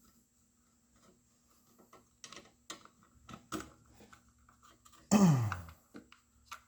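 Scattered small clicks and taps of hands working on car dash parts and wiring, then a short, loud sound falling in pitch about five seconds in.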